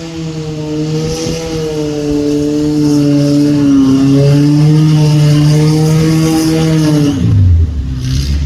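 A motor engine runs with a loud, steady pitched hum. Its pitch dips briefly about four seconds in, then drops and winds down about seven seconds in, over a steady hiss.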